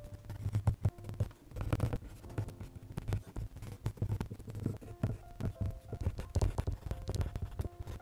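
Prismacolor colored pencil scratching on paper in quick, irregular short strokes, shading fur, over soft background music with held notes.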